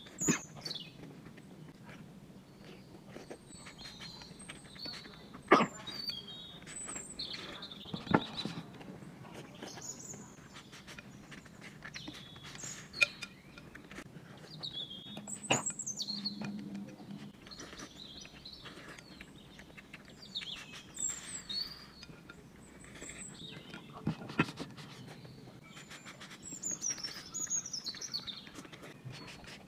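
Mukbang eating of spicy noodles and chilli peppers: slurping and chewing, with scattered sharp smacking clicks, a few louder near 6, 8, 15 and 24 seconds in. Short high chirps recur throughout, like birdsong.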